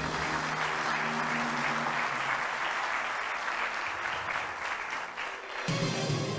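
Studio audience applauding a correct answer on a quiz show, with game-show music underneath. Near the end the applause dies away as a new music cue comes in.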